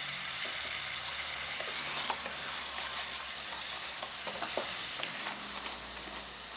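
Crab and freshly added milk sizzling in a hot pot, with a spatula stirring and now and then knocking against the pot.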